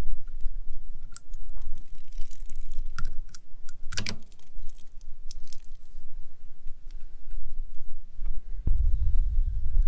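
Scattered light clicks and taps of small hose bib parts being handled, one sharper click about four seconds in, over a steady low rumble that grows louder near the end.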